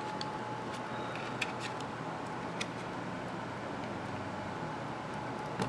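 A few faint, light clicks of a flat LCD display cable and its connector being handled by hand, over a low steady hiss.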